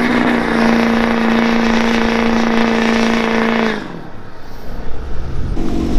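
Pickup truck engine revved up and held at steady high revs for nearly four seconds, then dropping off abruptly; a quieter engine rumble follows near the end.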